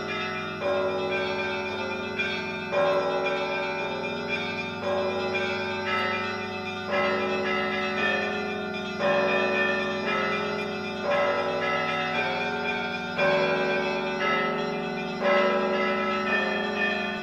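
Church bells ringing, a fresh stroke about every two seconds over the continuing hum of the earlier strokes.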